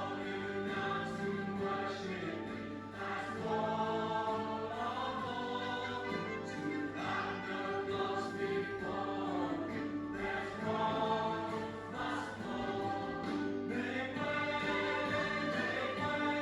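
Choir singing a hymn with instrumental accompaniment: held notes moving from chord to chord.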